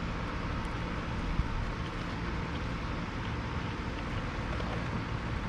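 Electric RC rock crawler with a Hobbywing Quicrun Fusion brushless motor creeping over the course, its motor and drivetrain giving a steady hum, with one brief knock about a second and a half in.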